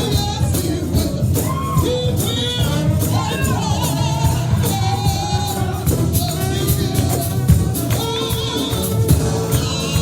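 Live gospel music: voices singing with wavering, held notes over a band, with a steady beat of regular high percussion hits.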